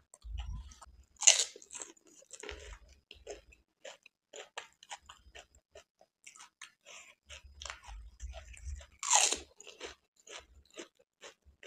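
Pani puri being eaten close to the microphone: two loud crunches as the crisp, water-filled puri shells are bitten, about a second in and about nine seconds in, with steady wet crackling chewing between them.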